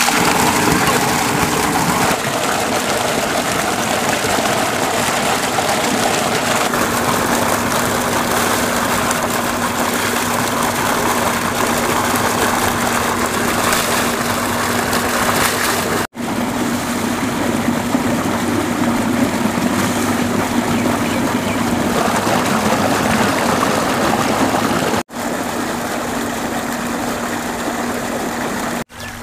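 Heavy stream of water gushing from an irrigation tube-well pipe and splashing into a brick tank, over a steady mechanical hum.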